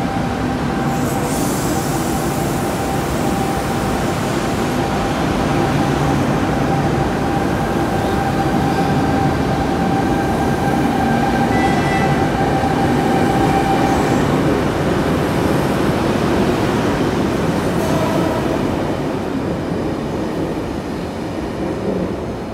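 Double-deck Sydney Trains electric train pulling out of the platform and running past, a steady hum of motors over the rumble of wheels. It grows louder through the first half, then fades in the last few seconds as the train clears the platform.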